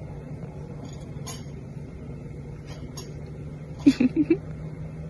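A bear rummaging among campsite gear and dishes, with a few faint clinks, over a steady low hum. About four seconds in come three loud short sounds in quick succession.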